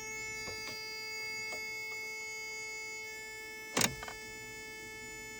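A steady electrical whine from the truck's switched-on locker circuit, with faint ticks about twice a second and one sharp click about four seconds in.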